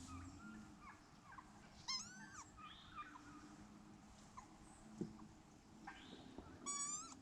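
Wood ducks calling: faint, thin squeals that rise sharply in pitch, scattered through, with a quick cluster about two seconds in and another near the end.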